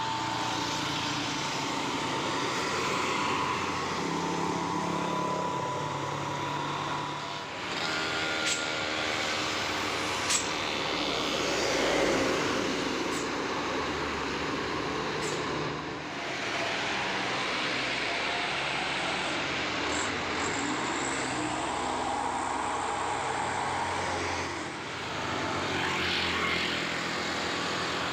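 Buses and other heavy vehicles climbing a steep hill, their diesel engines working under load with steady road noise. A multi-tone basuri 'telolet' horn sounds briefly at the start.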